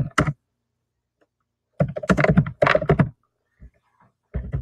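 Typing on a computer keyboard: a quick run of keystrokes lasting about a second, a couple of faint taps, then a few more keystrokes near the end.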